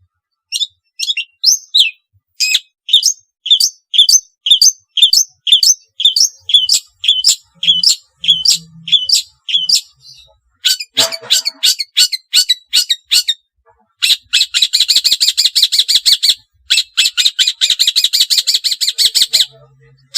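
Long-tailed shrike (cendet) calling: a long series of sharp, downward-sliding notes, about two or three a second. Harsher notes follow, then a rapid rattling chatter near the end.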